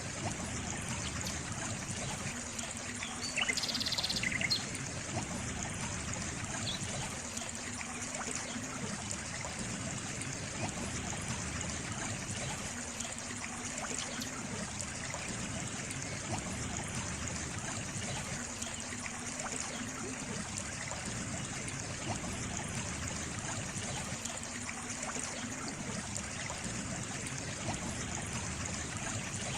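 Water trickling and flowing steadily, like a small stream. A brief high chirp rises above it about four seconds in.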